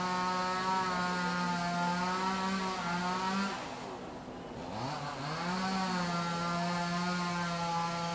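Engine of a WPZ-500 rail-laying machine revving up and holding a steady high pitch while pulling rails, then dropping back. About 4.7 s in it revs up again and holds, falling away once more near the end.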